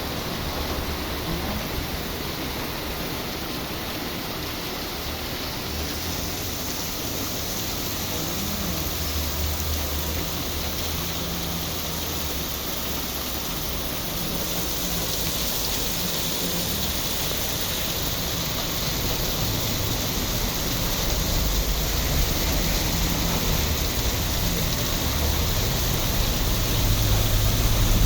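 Heavy rain falling steadily, a dense even hiss that grows louder toward the end, with a low rumble coming and going underneath.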